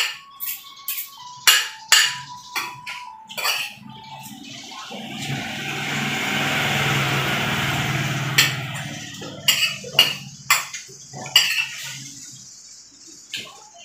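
Metal spoon and fork clinking and scraping against a ceramic plate while eating, a run of sharp clinks. About five seconds in, a rushing noise with a low rumble swells up and fades away over roughly four seconds before the clinking resumes.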